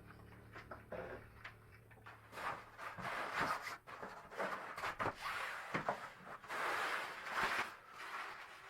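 Irregular rustling and handling noise with scattered short knocks and clatters, starting about two seconds in after a faint steady hum.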